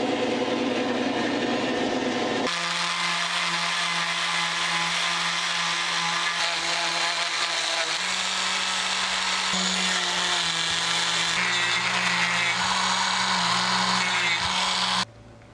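A band saw hums for about two seconds. Then a Dremel rotary tool whines steadily as it grinds the wooden lure body, first with a small sanding drum and then with a cutoff wheel. Its pitch steps up a little about eight seconds in, and it cuts off suddenly near the end.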